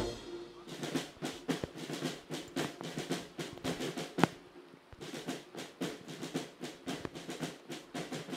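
Military band's snare drums playing a marching beat: a run of sharp drum strokes, with one louder crack about four seconds in.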